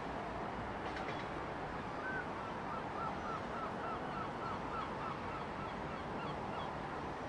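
A gull calling in a long run of short, yelping notes, about four a second, starting about two seconds in and lasting some four and a half seconds, over a steady background rumble.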